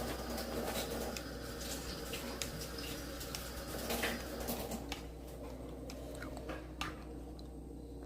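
Marinated chicken pieces being mixed by hand in a bowl of curd-and-spice marinade: wet squelching with soft clicks, thinning out after about five seconds.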